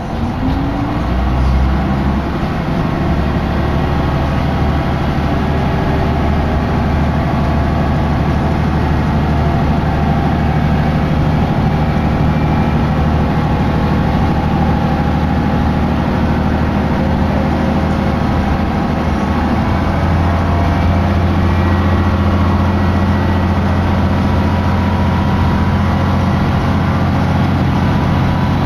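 Diesel railcar's engine running under power, heard from inside the cabin as a steady low drone. Its pitch rises in the first second or two, and the drone grows louder about twenty seconds in.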